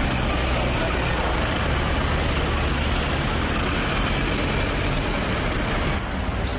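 Steady car engine running close by, with street traffic noise; a little duller and quieter near the end.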